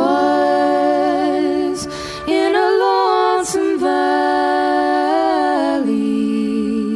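Two women singing a slow Irish ballad in close harmony, with little accompaniment. Their long held notes waver gently, with a short break between phrases about two seconds in.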